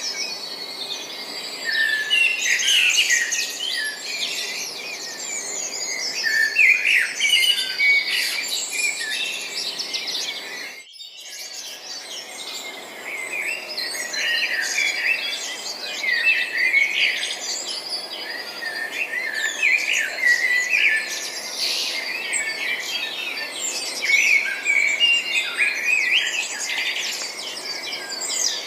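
A chorus of many small birds chirping and twittering at once, short overlapping calls with no let-up, over a faint steady hiss. The sound drops out briefly about eleven seconds in.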